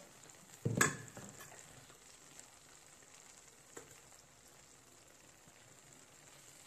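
A metal spoon clunks once against the steel pan about a second in, with a small click later. Under it the hot sauce and gravy give a faint, steady sizzling hiss.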